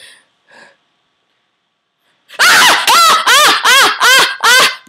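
A girl's loud, high-pitched shrieks in about seven rapid, laugh-like pulses, starting a little past two seconds in.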